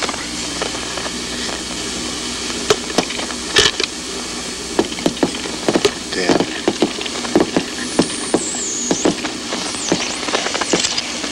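Scattered gunshots, sharp irregular cracks at uneven intervals, over a steady hiss of old film sound. The loudest shots come about three seconds in, with a quicker cluster in the middle. Near the end there are a couple of high whistling sounds that slide down and then up in pitch.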